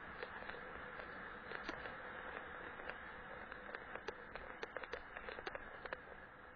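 Bicycle ridden over a snowy, rutted dirt track: a steady rush of tyres on snow and wind, with sharp irregular rattling clicks from the bike that become more frequent in the second half.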